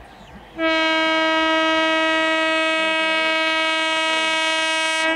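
Horn of an Indian Railways EMU local train sounding one long, steady blast that starts about half a second in and cuts off just before the end.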